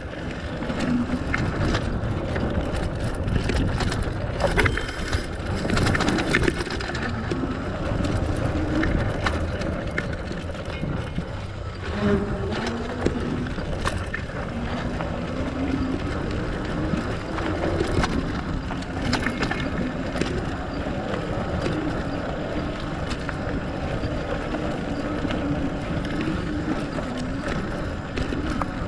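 Fatbike riding over a dirt forest trail: steady rolling noise from the wide tyres with scattered knocks and rattles over bumps, and a drone that rises and falls in pitch with speed.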